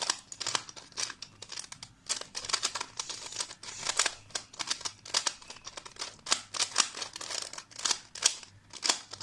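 Plastic clicking and scraping of a 2x2 Rubik's cube being turned quickly by hand in rapid, irregular twists to scramble it. The cube is rough to turn, so the layers grate as they move.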